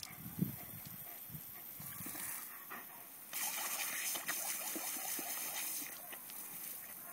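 Water jet from a Gardena lawn sprinkler hissing, spattering much louder for a couple of seconds in the middle as a German Shepherd bites into the stream at the sprinkler head. A few soft thumps in the first second or so.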